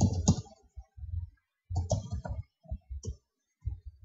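Computer keyboard typing: irregular clusters of key clicks with short pauses between them, as a short command is entered and then a second line is typed.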